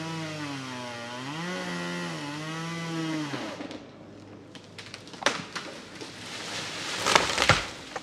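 Chainsaw running, its engine pitch rising and falling as it cuts, then cutting out about three and a half seconds in. A few sharp cracks follow, then a loud crash near the end.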